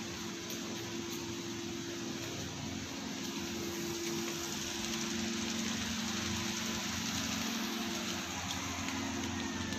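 Woodworking shop machinery running: a steady hum with an even rushing noise, a little louder from about four seconds in.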